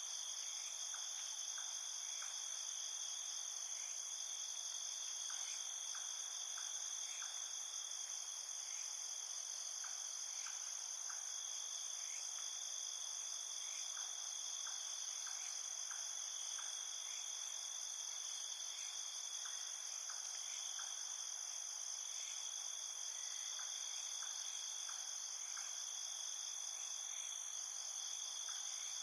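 Night insect chorus: crickets trilling steadily at several high pitches at once, with scattered short ticks in small clusters underneath.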